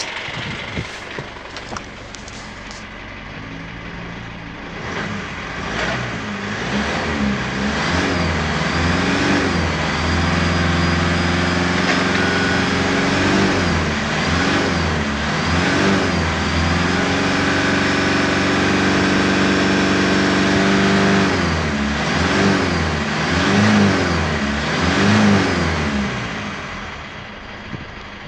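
2016 Foton Tunland's 2.8-litre Cummins four-cylinder turbo-diesel being revved while stationary: repeated short throttle blips and two longer holds at raised revs, then settling back to idle near the end. A few clicks in the first seconds.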